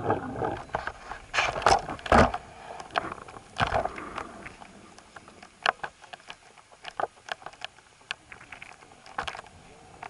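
Scattered knocks, clatters and scrapes from the airframe of a model T-28 plane, its propeller stopped, as it tips over onto its side on the runway. The knocks are loudest in the first few seconds and then grow sparse and fainter, over a low rush of wind on the microphone.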